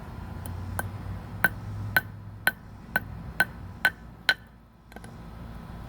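About nine sharp, ringing strikes, roughly two a second, as something hard is hammered repeatedly on a casing holding a fidget spinner, which does not break.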